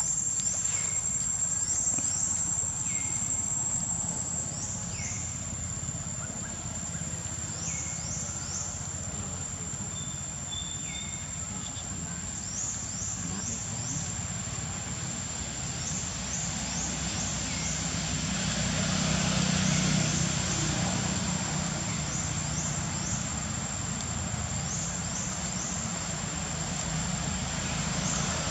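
Outdoor ambience: a steady, high-pitched insect drone, short falling chirps in quick clusters of two to four every second or two, and a low rumble that swells about two-thirds of the way in.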